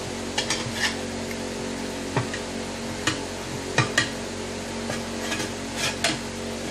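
Scattered light clicks, taps and scrapes of hand work on a mower tyre and its rim, about a dozen short knocks in all, the sharpest near four seconds in, over a steady low hum.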